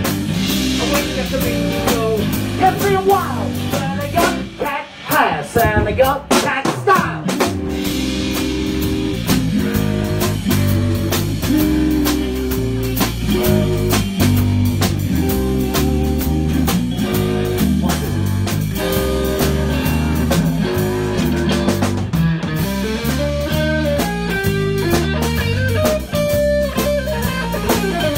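Live blues-rock band playing an instrumental stretch: electric guitar over a drum kit, with bending guitar notes a few seconds in.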